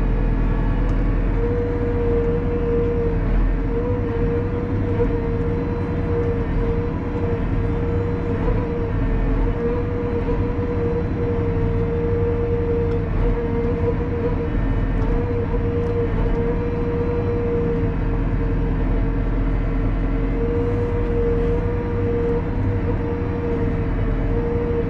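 Valtra 154e tractor's diesel engine running steadily, heard from inside the cab, with a steady whine held over the engine's low rumble.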